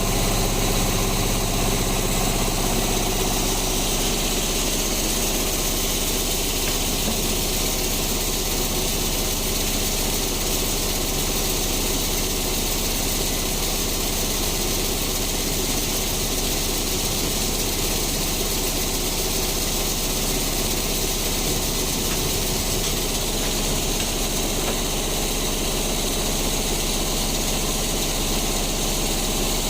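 Sawmill band saw machinery running steadily, an engine-like drone with a low hum that stays level throughout.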